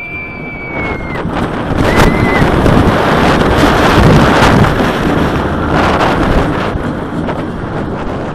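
Iron Rattler, a steel-track hybrid roller coaster, going down its first drop as heard from the front seat: loud wind rush on the microphone and the train running on the track, building over the first couple of seconds and staying loud. A held high scream opens it, and a short one follows about two seconds in.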